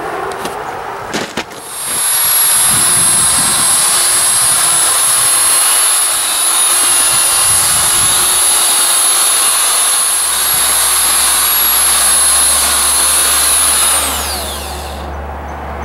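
Electric drill driving a paddle mixer through Thermix chimney insulation and water in a plastic tub. A steady high motor whine starts about two seconds in and runs for about twelve seconds, then falls in pitch and dies away as the drill is released and spins down.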